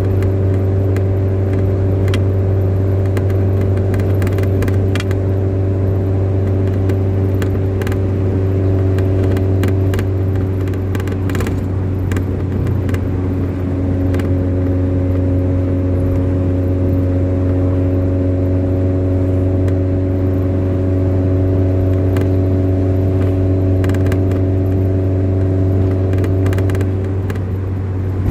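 A motor engine running at a steady speed, its pitch shifting slightly about halfway through, with scattered clicks and rattles.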